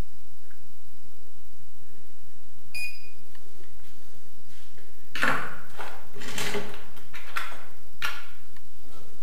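Small chrome plumbing fittings clinking and rattling as they are rummaged through by hand on a wooden shelf, with a single short metallic ping about three seconds in.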